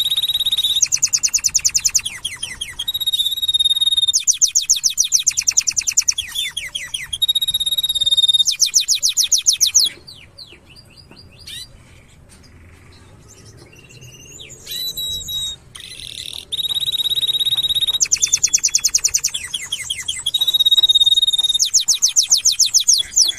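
Domestic canary singing: long phrases of high held whistles alternating with very fast rolling trills. The song drops to scattered quieter notes for a few seconds about halfway through, then resumes at full strength.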